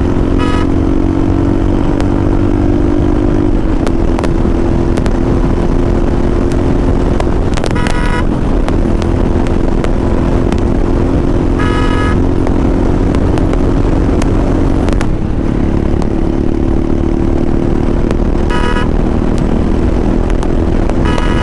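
Royal Enfield Hunter 350's single-cylinder engine running under way at a steady pace, its pitch shifting slightly a couple of times. Vehicle horns toot briefly five times: near the start, about 8 and 12 seconds in, and twice near the end.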